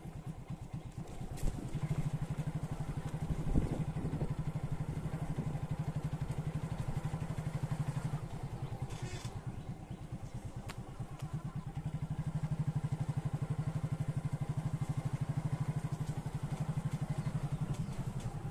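Engine of the vehicle being ridden in, running steadily as it travels, with a fast even pulse that gets a little louder for a few seconds past the middle. A single knock about three and a half seconds in.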